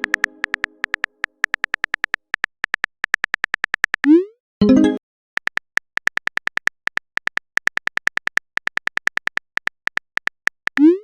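Phone keyboard typing sound effect: a rapid run of short, high clicks. About four seconds in, a quick rising whoosh and a bright chime sound the text message being sent and a reply arriving, and then the clicks start again.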